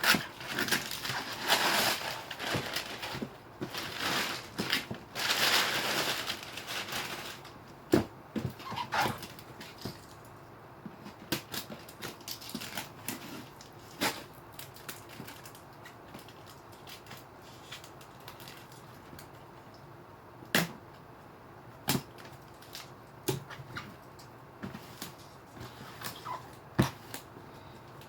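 Shoe boxes and their packaging being handled: rustling for the first several seconds, then scattered sharp knocks and taps of cardboard being set down and moved.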